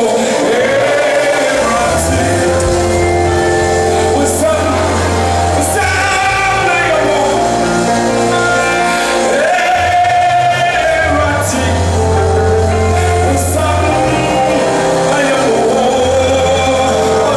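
Live gospel worship song: a woman sings lead into a microphone over a band of keyboard, bass guitar and drums. Long held bass notes and occasional cymbal strikes sit under the voice.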